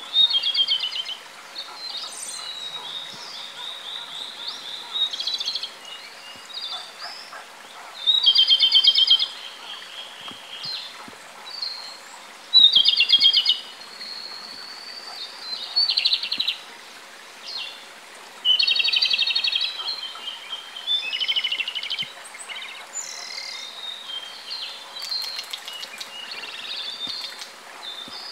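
Japanese robin singing: loud song phrases every few seconds, each a high note followed by a rapid, rattling trill, with fainter calls between them.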